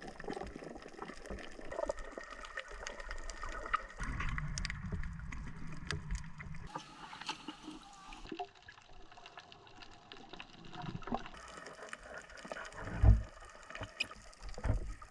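Water sloshing and splashing, with scattered small clicks and a few low thumps, the loudest about 13 seconds in.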